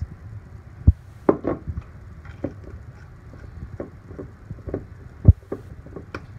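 Scattered knocks and clicks of kitchen containers being handled and set down, with two louder thumps about a second in and near the end.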